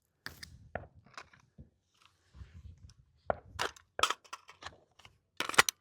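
Short metallic clicks and clacks of gun handling: an AR-15-style rifle being reloaded from bolt lock, with a magazine seated and the bolt run, and a pistol being holstered. The clicks are irregular, with the loudest a little over three seconds in and a quick cluster near the end.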